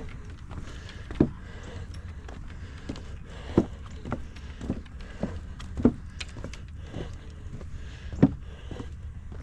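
Footsteps of a hiker walking a trail, with a heavier thud about every two and a half seconds and lighter steps between, over a steady low rumble.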